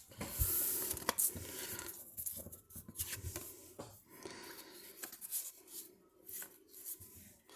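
Trading cards being handled and sorted through a stack: irregular rustling and sliding, with scattered soft clicks and taps.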